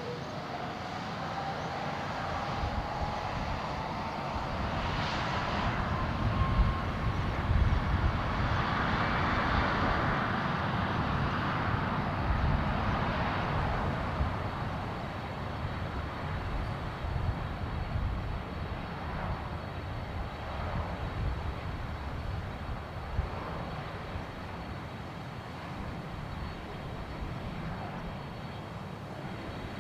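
Jet airliner taking off: the engines' whine climbs steadily in pitch over a deep rumble that swells to its loudest about a third of the way in, then slowly fades as the aircraft climbs away.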